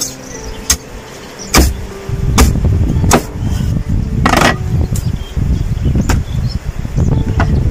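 Meat cleaver chopping through a lamb carcass onto a wooden cutting board: about five heavy chops in the first four and a half seconds, then a couple of lighter knocks as the meat is handled. A low rumble runs underneath from about two seconds in.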